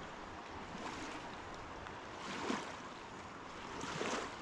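River water rushing steadily, with two brief louder swells, about two and a half and four seconds in.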